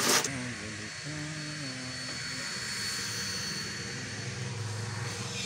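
A steady motor drone with a low hum that shifts pitch now and then, after a brief loud burst of noise at the very start.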